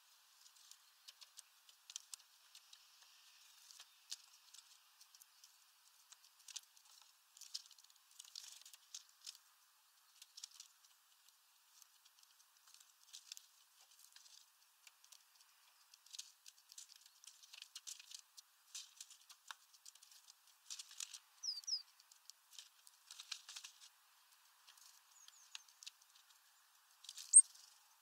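Great tits pecking and scratching at a mesh seed bag and wooden perch: irregular light tapping and rustling clicks. A short high chirp sounds once about two-thirds through, and a sharp high squeak near the end is the loudest sound.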